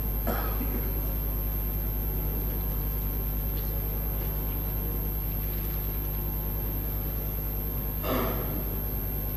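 Steady low electrical hum of an open microphone and sound system, with a brief faint rustle near the end.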